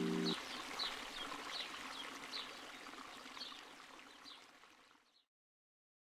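Flowing water with short, high bird chirps repeating roughly every second. Both fade out steadily and end about five seconds in. A held music chord cuts off just after the start.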